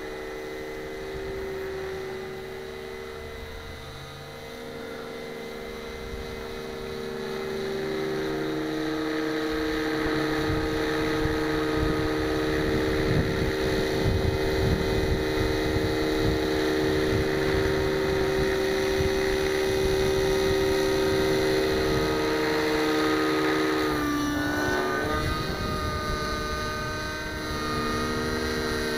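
Nitro glow-engined RC helicopter (JR Vibe 55 with an O.S. engine) flying: a steady, high engine-and-rotor whine that grows louder about eight seconds in as the helicopter comes closer, with a short dip and rise in pitch near the end. The engine is set rich.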